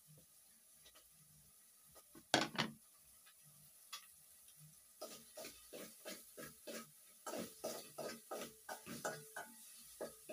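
A plate knocks down onto a hard table top a little over two seconds in, the loudest sound. From about halfway on there is a fast, irregular run of short grunting calls, several a second, from an unseen animal.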